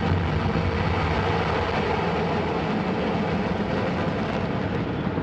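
Antares 230 rocket's first stage, two RD-181 engines, firing at ignition and liftoff: a loud, steady rumbling roar of exhaust noise.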